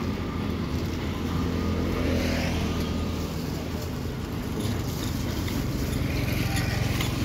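A motor engine running with a steady low hum, swelling about two seconds in and again near the end.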